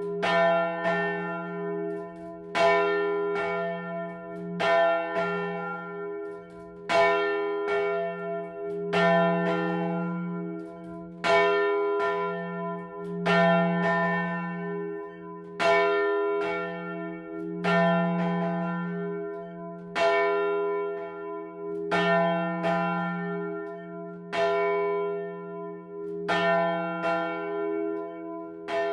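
A large bronze church bell swinging in its tower, its clapper striking about once every two seconds. Each stroke rings out and dies away over a low hum that carries on between strokes.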